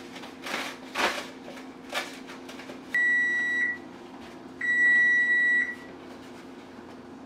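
Paper towels pulled off a roll and rustling, then two long electronic beeps at one steady high pitch from a kitchen appliance, the second beep longer, over a steady low hum.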